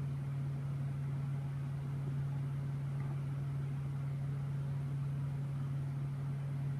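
A steady low hum with a faint hiss over it, unchanging throughout, with no other events.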